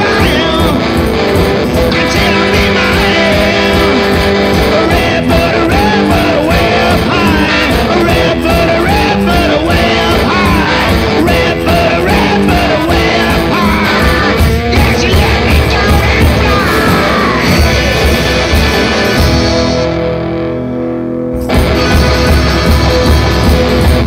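One-man-band rock and roll song: electric guitar over a steady, driving drum beat. Near the end the cymbals drop out for about two seconds, leaving guitar and low drums, before the full beat comes back in.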